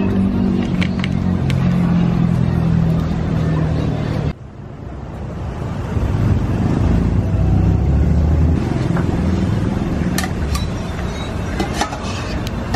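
Metal spatula and ladle stirring curry filling in a large steel wok, with a few sharp clinks against the metal near the end, over a steady low engine-like hum of outdoor street noise. The sound cuts off abruptly about four seconds in and builds back up.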